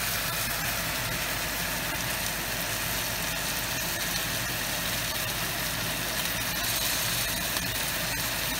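A steady, even mechanical hum with a hiss over it, unchanging throughout.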